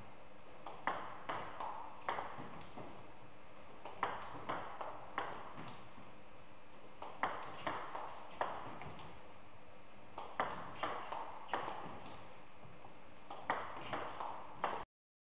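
Table tennis ball clicking as it bounces on the table and is struck by the rubber of a racket in backhand pushes off short balls. The clicks come in quick groups of about three, roughly every three seconds, and stop abruptly near the end.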